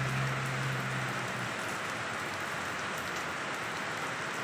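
Steady rain falling on banana leaves and surrounding foliage, an even hiss with faint patter of drops. A low steady hum underneath fades out about a second in.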